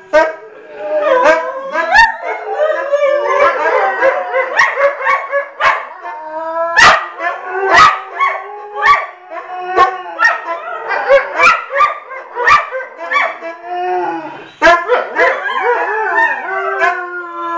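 Salukis howling in chorus: several wavering howls overlap and rise and fall in pitch, broken by short sharp yips. Near the end one long howl is held steady.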